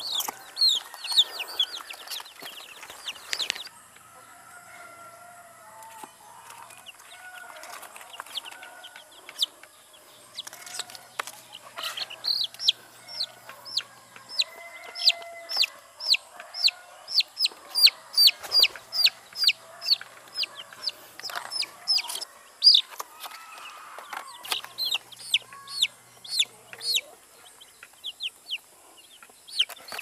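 A box of week-old chicks peeping: short, high, falling peeps, coming in bursts and then in a dense run of two to three a second through the middle, as the chicks are caught and handled for eye-drop vaccination. Fainter, lower wavering calls sit underneath.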